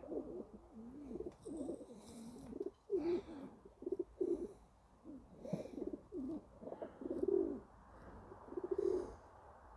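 Domestic pigeons cooing on and off as the flock settles to roost.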